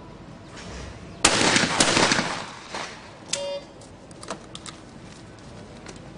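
Shotgun fire on a skeet range: a sharp blast about a second in, ringing on and dying away over about a second. A short electronic beep follows a couple of seconds later.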